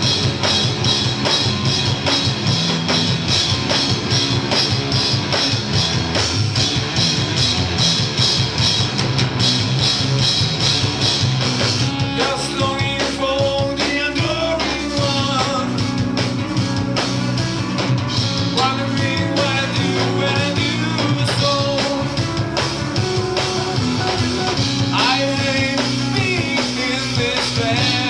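Live stoner rock band playing: distorted electric guitar, bass and a drum kit at full volume, heard from within the audience. A man's singing voice comes in about twelve seconds in and again near the end.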